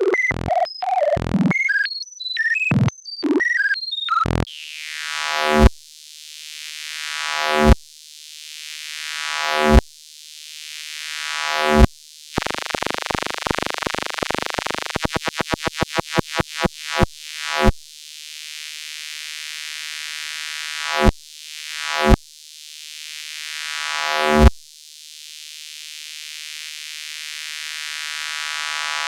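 Synthesized electronic sound effects. First come quick robot-like chirps and beeps that jump in pitch. Then a series of swelling tones that each build and cut off suddenly, a run of pulses that speed up in the middle, and more swells toward the end.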